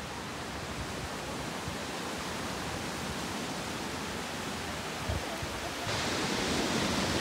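Steady rush of ocean surf and wind on a beach, louder from about six seconds in.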